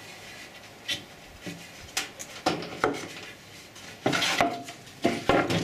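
Wooden boards knocking and scraping as an upright board is pushed down onto a flat board at a biscuit joint: a string of sharp wooden knocks, with a longer rubbing scrape about four seconds in. The joint goes together tight.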